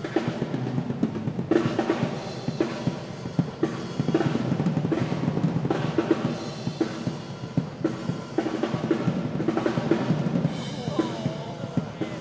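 Solo on a Yamaha acoustic drum kit: fast, dense strokes across the snare, toms and bass drum, with repeated cymbal crashes.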